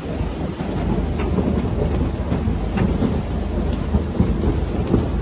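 Strong wind buffeting the microphone with a low rumble over the steady hiss of heavy rain, with a few light ticks.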